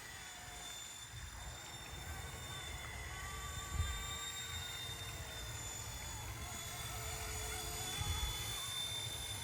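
RC Era C189 MD500 remote-control helicopter in flight: a steady high motor-and-rotor whine whose pitch drifts slightly up and down as it is flown, over a low rumble of wind on the microphone.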